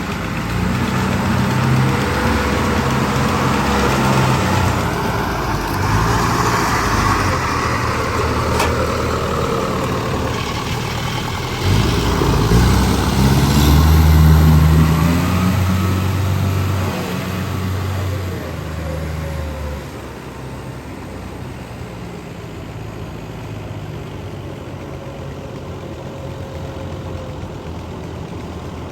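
Kubota DC93 rice combine harvester running, its diesel engine droning steadily with the machine working. The engine note shifts and swells through the first two-thirds, then settles to a quieter, steady run.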